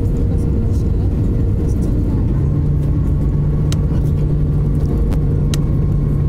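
Jet airliner cabin noise during descent: the steady roar of the engines and rushing air. A steady hum joins about two seconds in.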